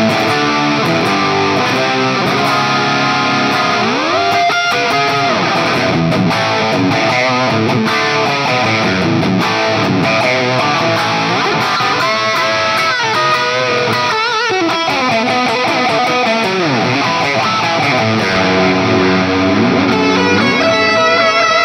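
Electric guitar played through a heavily overdriven amp preset on a digital multi-effects pedalboard, running lead phrases with string bends and slides. The tone is a smooth, saturated high-gain drive without grit.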